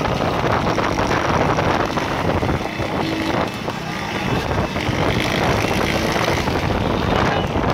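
Motorcycle engines running at speed alongside, mixed with wind rushing over the microphone of a moving bike.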